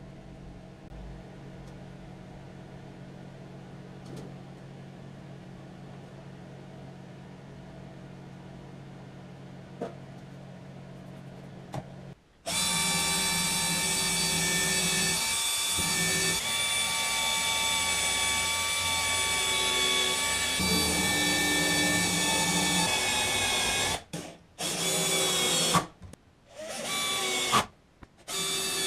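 A low steady hum, then about twelve seconds in a power tool starts suddenly and runs loud with a high, many-toned whine. It cuts out abruptly a few times near the end.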